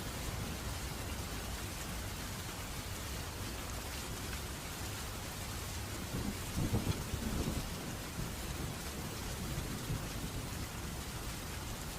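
Steady rain falling, with a low roll of thunder rumbling for about two seconds around the middle and a smaller rumble a little later.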